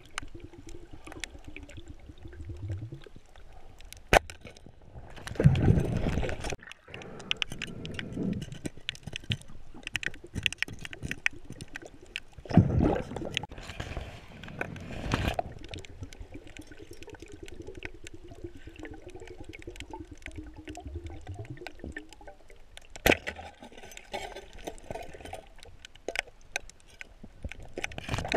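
Underwater sound picked up through a camera's waterproof housing: a constant faint crackle of small clicks, with rushing, bubbling swishes of water several times as the diver moves. There are a few sharp single clicks.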